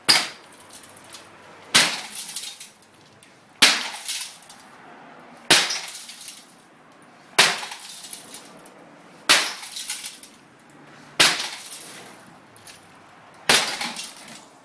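Eight heavy blows of a block splitter (splitting maul) on laminated glass backed with 24 mil security film, about two seconds apart. Each blow ends in a short crackle of the glass breaking, while the filmed pane holds together.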